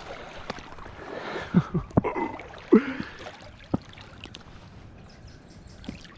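Marsh water sloshing and splashing, with a few sharp knocks and clicks about two to three seconds in.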